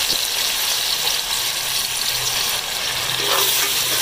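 Beef mince and sliced onions sizzling in oil in a metal pot, a steady hiss; near the end a metal spoon starts stirring and scraping against the pot.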